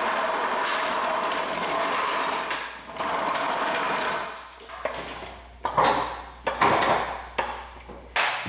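Steel floor jack rolled across a concrete floor, its wheels clattering steadily for about four seconds, followed by several loud clunks and knocks as it is set up under the frame.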